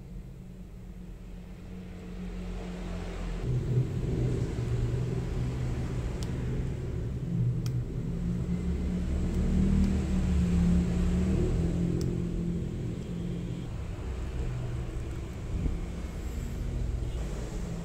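A steady low rumble that swells about three seconds in, with a few faint sharp clicks.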